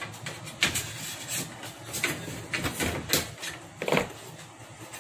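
Irregular light clicks and knocks of a metal sliding-door bottom frame rail being handled and shifted on a worktable, about seven short taps in five seconds.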